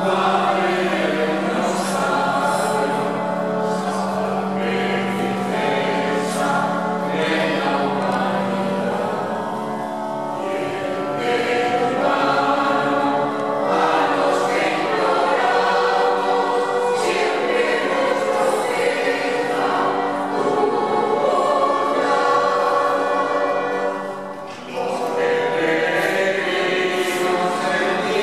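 Mixed choir singing a Spanish hymn to the Virgin of the Rosary in sustained phrases, with a brief break between phrases near the end.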